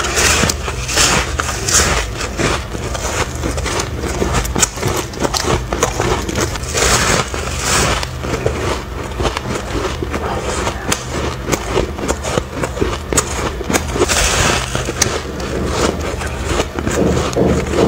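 Close-miked biting and chewing of soft, fluffy frost ice: dense, irregular crunching and crackling that comes in clusters with each bite. A steady low hum runs underneath.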